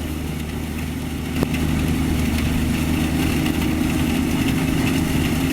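Kubota DC-35 combine harvester's diesel engine running steadily. A single knock about a second and a half in, after which it runs a little louder.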